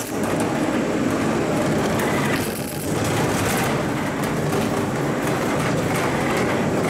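Wheeled metal stretcher trolley carrying a coffin rolling over a hard floor: a steady rolling rumble that dips briefly about two and a half seconds in.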